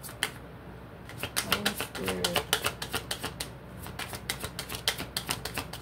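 A deck of cards being shuffled by hand: rapid dry clicks of cards snapping against one another, in quick runs broken by short pauses.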